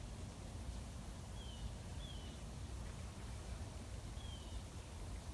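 A small bird gives three short, high, falling chirps over a steady low outdoor rumble.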